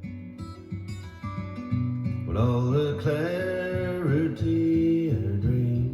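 A song playing over a hi-fi system with a subwoofer: strummed acoustic guitar over steady bass notes, with a sustained, sliding melody line coming in about two seconds in and fading out near the end.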